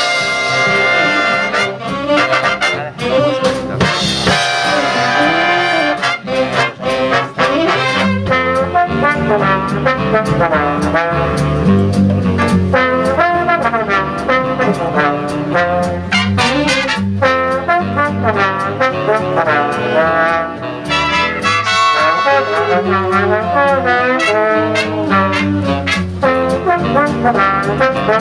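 Jazz big band playing live, with a trombone solo out front over upright bass, drums and the backing saxophones and trumpets. The full band enters loudly just before the start, and the bass comes in stronger about eight seconds in.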